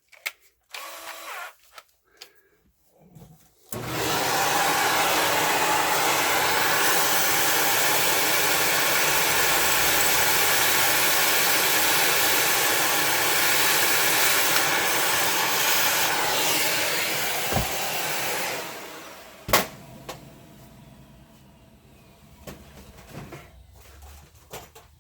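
Electric Bosch drill with a 1/8-inch bit, drilling a hole in the case of a Bosch fuel-injection control unit. It runs steadily for about fifteen seconds, then winds down, followed by a sharp click.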